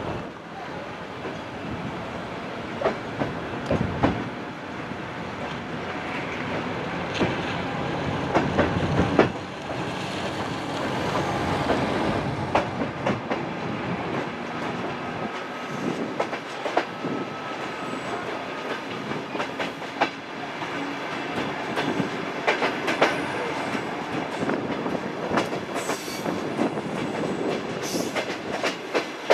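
Suburban passenger train running, heard from inside a carriage: a steady rumble of running noise with irregular clicks and knocks as the wheels pass over rail joints.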